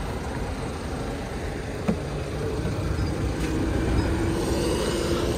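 Steady highway traffic and wind noise beside a car. About two seconds in there is a faint click as the car door is unlatched and opened.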